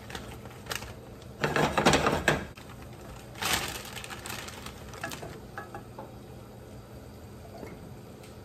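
Green beans poured from a plastic bag into an oiled skillet, clattering against the pan in a loud burst about a second and a half in and a shorter one about three and a half seconds in, with a few light clicks after.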